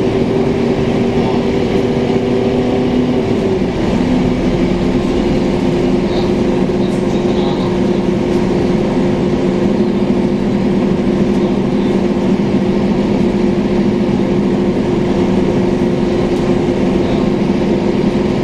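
Scania K230UB city bus under way, heard from inside the passenger cabin: its Scania DC9 diesel engine and ZF automatic gearbox give a steady drone with a whine that steps down slightly in pitch about three and a half seconds in.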